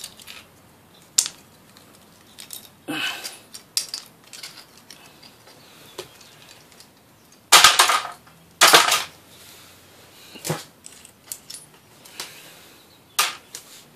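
Pieces of scrap from a dismantled aquarium light being handled and tossed down: scattered clicks and clinks of small metal and plastic parts, with two louder clattering hits a little past halfway.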